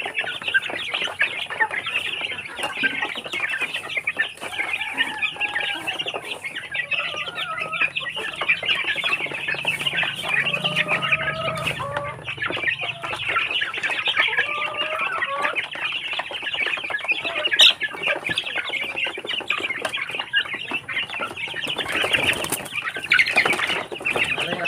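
A flock of Barred Plymouth Rock chickens feeding at plastic troughs: clucking calls over a dense, rapid tapping of beaks pecking feed, with a short burst of wing flapping near the end.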